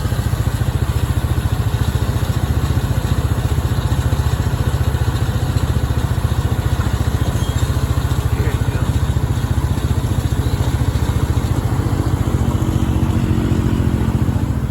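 An engine idling steadily close by, a low, rapid, even throb. A second, higher engine hum comes in for a couple of seconds near the end.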